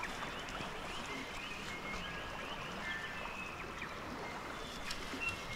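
River water flowing over a stony riverbed, a steady rush, with short high-pitched tones scattered over it.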